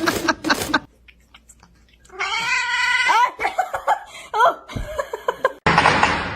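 A cat yowling: one long, wavering meow about two seconds in, followed by a few short rising meows. Near the end a louder, noisier sound cuts in.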